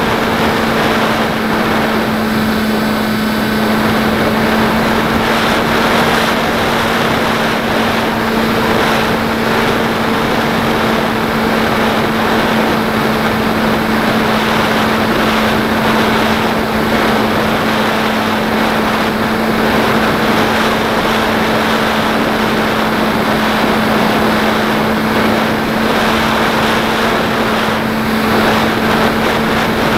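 Electric motor and propeller of a Beta 1400 RC flying wing, recorded by its onboard camera, running at a steady cruise with a constant buzz under loud rushing airflow noise.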